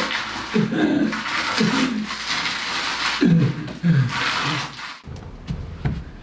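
A man's repeated groans of pain: a string of short cries, each falling in pitch, over a hissing background. They stop abruptly about five seconds in, leaving a low hum and a few faint clicks.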